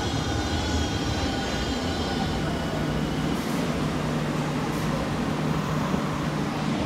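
Tokyo Metro Ginza Line 1000-series subway train arriving on the far track and braking to a stop: steady wheel and running noise with thin high whining tones that fade out by about halfway. A steady low hum comes in about two seconds in, and the noise drops off at the very end.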